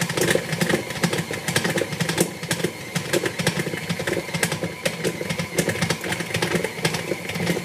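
KitchenAid stand mixer running at a high speed, beating stiff cookie dough, with a steady motor hum and rapid, irregular clicking and knocking from the beater working the dough in the steel bowl.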